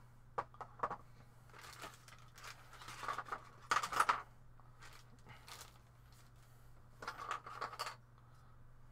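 Plastic packing bag rustling and crinkling in several bursts, with a few light clicks as 3D-printed resin model parts are handled and set down on a table. A faint steady low hum lies underneath.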